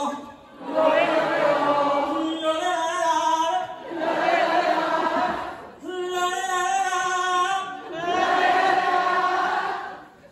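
A male singer on the PA singing short phrases and a large concert audience singing each one back, call-and-response, the solo voice and the crowd taking turns about every two seconds.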